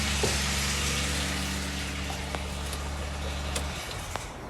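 2008 Subaru Outback 3.0-litre flat-six engine idling steadily with its accessory belt removed, running with a rattle that the owner suspects comes from a timing chain tensioner on the left bank. The engine sound stops abruptly near the end.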